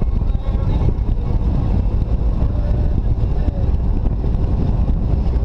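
Jeep Wrangler driving along a paved road at steady speed: a constant low rumble of engine and road noise, picked up by a hood-mounted camera with wind on the microphone.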